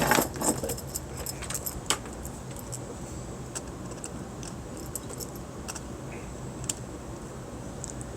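Light clicks and small metallic rattles of computer hardware and cables being handled, thickest in the first two seconds and then scattered single clicks, over a steady low hum.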